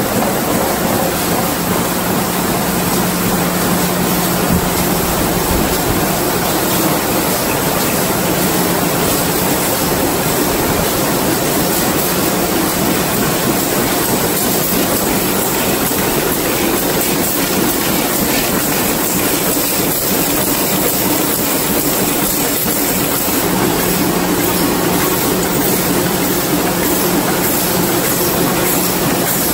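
Row of high-speed stamping presses running together, forming hollow plug pins from brass strip: a steady, dense mechanical clatter with a low hum that drops out for most of the middle and comes back near the end.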